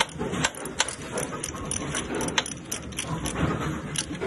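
Irregular metallic clicks and clinks of hand tools and bolts being worked on the cushion assembly of an AMF 82-70 bowling pinspotter, over low handling and rubbing noise.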